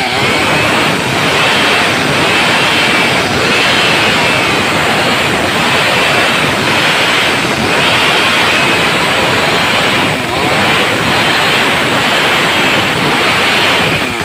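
Stihl MS 382 two-stroke chainsaw at full throttle, ripping lengthwise through a timber beam, with brief dips in the sound every second or so as the chain works through the wood.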